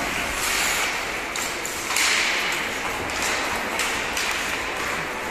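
Ice hockey play on the rink: skate blades scraping and carving the ice in repeated hissy bursts, with several sharp clacks of sticks and puck.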